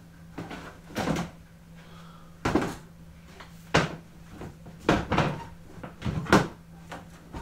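Plastic storage box being handled: its lid lifted off and put back and its contents rummaged through, giving about six separate knocks and clatters spread over the few seconds.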